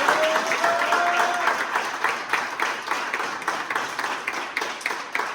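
A group of players applauding, many hands clapping fast and then thinning out toward the end, with one held, slightly rising call over the clapping in the first second or so.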